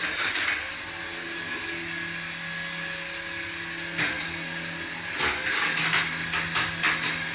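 Small electric motor of a remote-control toy whirring steadily, with short clicks about 4 and 5 seconds in.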